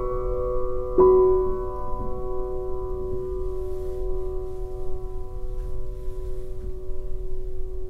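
Slow background piano music: one chord struck about a second in, left to ring and fade slowly.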